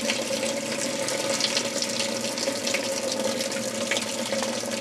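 Whirlpool Direct Drive top-loading washer filling with hot water: a steady rush of water pouring into the tub, with a steady tone underneath.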